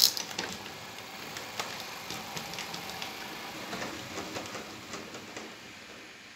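Small motorised model trams running on narrow-gauge layout track, with many sharp, irregular clicks and rattles from the wheels crossing points and rail joints. The clicking is loudest in a burst at the start and thins out near the end.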